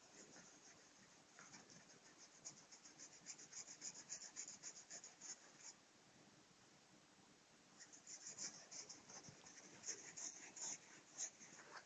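Faint, quick scratching strokes, several a second, in two runs with a pause of about two seconds between them.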